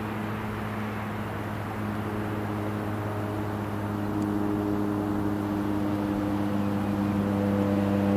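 Cessna 208 Caravan single-engine turboprop flying overhead: a steady propeller drone with several humming tones, slowly growing louder as it comes nearer.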